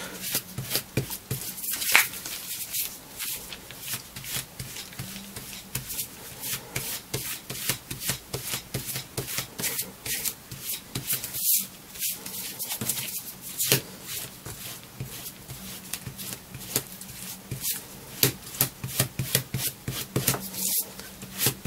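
Small spatula scraping back and forth over the flesh side of vegetable-tanned leather, smoothing in Tokonole to lay down the nap: a quick run of short scraping strokes, several a second.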